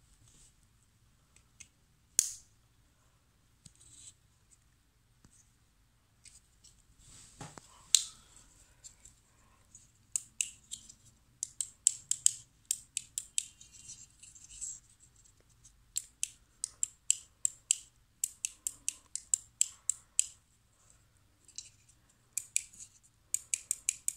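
Short, sharp, high-pitched clicks and scrapes from hand work on the small parts of a disassembled door lock switch: a few isolated ticks at first, then from about ten seconds in a fast, uneven run of crisp clicks, two or three a second, with brief pauses.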